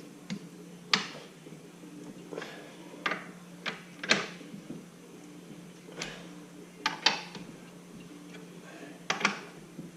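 Scattered metal clicks and clinks from hand tools and fasteners being worked on a Ford 9-inch differential third member, at irregular intervals, over a steady low hum.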